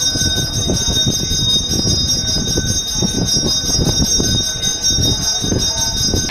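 Brass temple bell rung without pause during an abhishekam, its ringing held as a steady chime of several high tones over a low background clatter.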